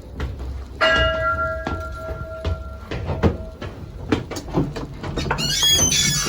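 A bell struck once, about a second in, ringing with several steady tones that fade away over about three seconds. Scattered knocks sound throughout.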